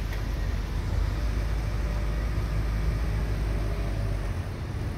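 First-generation Mazda MX-5 Miata's four-cylinder engine running low and steady as the car rolls slowly past, the deep drone easing slightly near the end.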